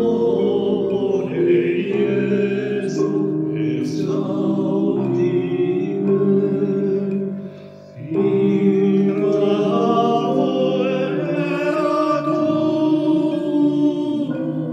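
Choir singing a Latin hymn in long held phrases, breaking off briefly about seven and a half seconds in before the next phrase begins.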